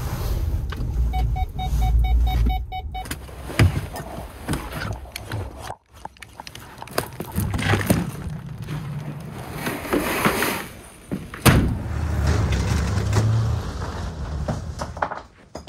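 Low road rumble inside a Ford pickup's cab, with a quick chime repeating about five times a second for a couple of seconds. After a cut come scattered knocks, thumps and rustling of boxes and gear being handled and loaded.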